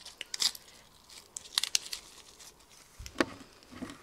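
Crisp lettuce leaf crinkling and rustling in the hands as it is folded around a fish stick, in short crackles, with one sharper, louder snap about three seconds in.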